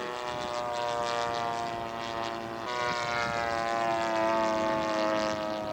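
Propeller engine of a radio-controlled scale model airplane running steadily in flight, with a slight shift in pitch about halfway through.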